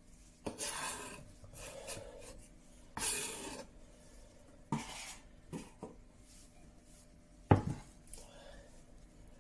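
Kitchen countertop handling sounds: two spells of scraping and rubbing, a few light knocks, and one sharp, loud knock near the end as a bowl is set down beside the cutting board.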